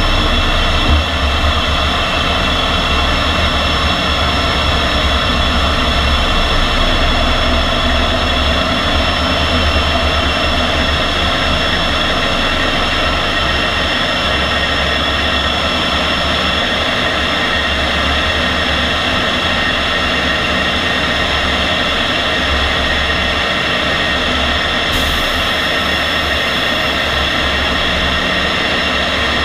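MiG-15 jet engine running steadily: a constant whine made of many steady tones over a heavy low rumble, with no rise or fall in pitch.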